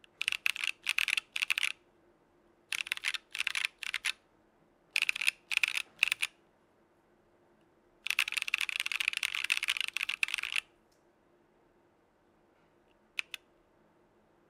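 Typing on a mechanical keyboard: lubed Gazzew Boba U4T tactile switches in a Geonworks Frog with an aluminum plate and no foam. Three short bursts of keystrokes separated by pauses, then a fast unbroken run of about two and a half seconds, and two lone keystrokes near the end.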